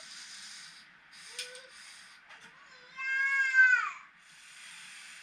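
Huina 1580 metal RC excavator's small electric motors and gearboxes whirring in short bursts as the arm and bucket move, with a louder strained whine about three seconds in that drops in pitch as it stops.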